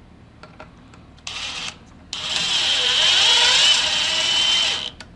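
Ten-year-old Kobalt 24-volt cordless drill, on its original battery, buzzed briefly on the trigger and then run for about three seconds. Its motor whine wavers in pitch before it stops sharply.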